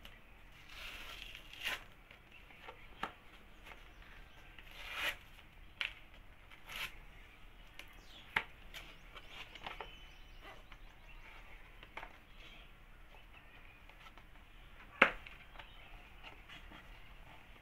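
Paper seal being peeled and torn off a small cardboard box, with rustling and scattered light clicks of cardboard as the box is opened; one sharp click stands out near the end.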